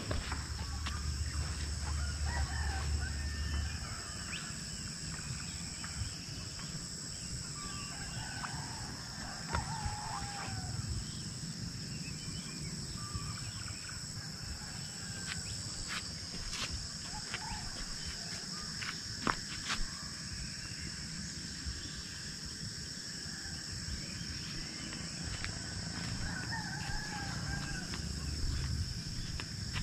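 Chickens clucking and a rooster crowing now and then, over a steady high-pitched whine and a low rumble. A few sharp clicks come in the middle.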